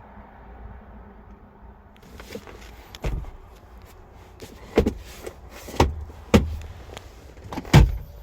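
A series of five sharp thumps and knocks, one to two seconds apart, from the car's doors and body being handled, with rustling between them; the last is the loudest.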